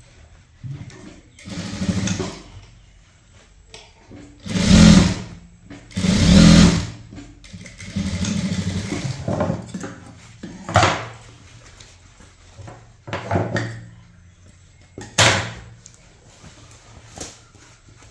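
Sewing machine stitching a dart in a blouse, running in a series of short bursts that stop and start.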